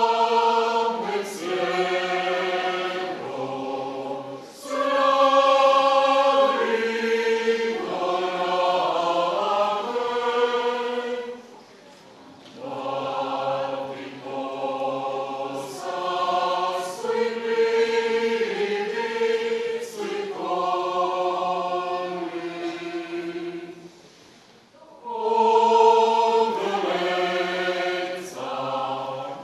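Mixed choir of men's and women's voices singing unaccompanied, holding sustained chords in phrases, with brief pauses between phrases about four, twelve and twenty-four seconds in.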